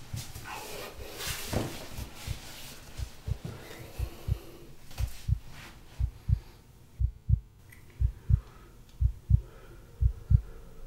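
Heartbeat sound effect: low double thumps, lub-dub, about once a second, under a hiss that fades out after the first few seconds.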